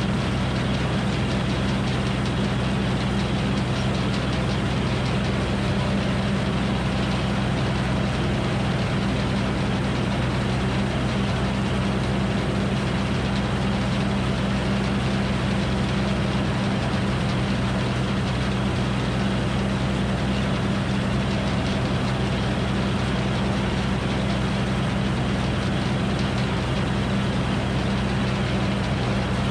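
Frick circular sawmill running steadily at speed, a constant low hum with no cut under way.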